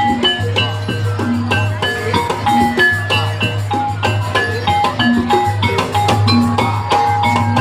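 Music of struck tuned metal or wooden percussion playing quick, short notes in a busy rhythm, with drums and a steady low drone underneath.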